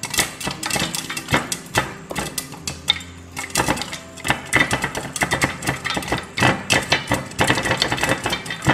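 Popcorn kernels popping in hot oil in a covered pan: a dense, irregular run of sharp pops at full popping, many each second.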